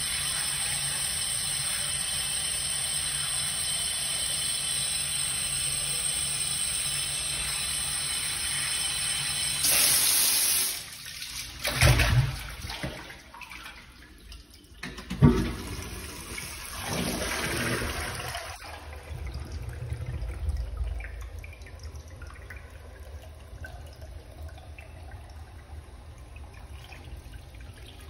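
Water running steadily for about ten seconds. It stops, then come two heavy thumps a few seconds apart as a water-filled balloon is handled and dropped into a ceramic squat toilet pan. A quiet trickle of water follows.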